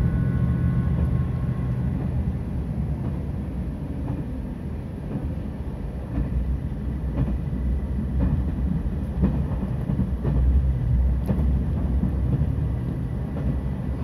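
Inside a limited express diesel railcar running at speed: a steady low rumble of wheels on rail, with scattered sharp clacks over rail joints. A steady engine drone fades away in the first couple of seconds.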